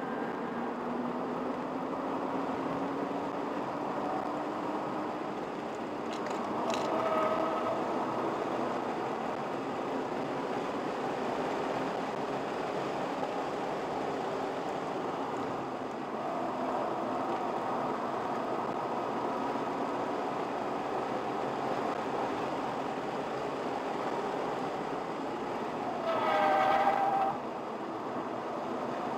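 Car engine running under load, heard from inside the cabin, its pitch climbing slowly over the first several seconds. Tyres squeal briefly twice, about seven seconds in and louder near the end.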